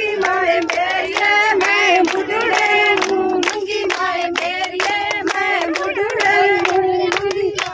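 Women singing a Punjabi boli for giddha to steady, rhythmic hand clapping.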